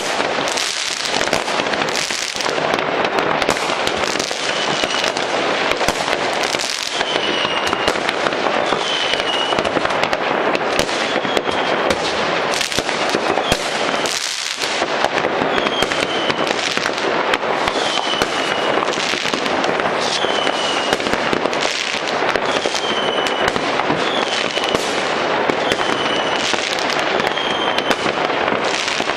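Dense, continuous crackling and banging of many fireworks and firecrackers going off at once across a city, with no single burst standing out. Through most of it a short high tone repeats every second or two.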